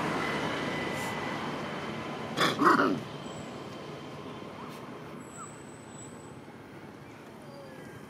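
Passing road traffic fading away, broken about two and a half seconds in by a short, loud two-part screech from a macaque.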